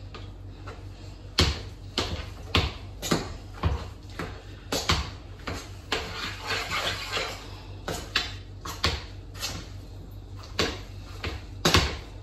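Cooked potatoes being mashed with butter in a stainless steel pot: the masher knocks against the pot in a steady run of about two strokes a second, becoming sparser and more irregular in the last few seconds.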